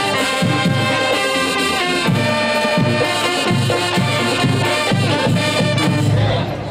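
Brass-and-drum marching band playing, with sousaphones, trumpets and other brass over a steady bass drum beat. The piece cuts off sharply near the end.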